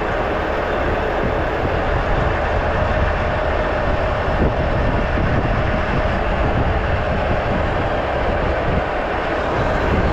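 Semi truck's diesel engine running as the tractor rolls slowly, a steady low rumble mixed with tyre and road noise.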